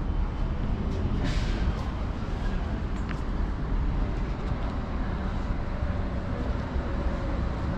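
Steady low rumble of city traffic, with a brief hiss about a second in.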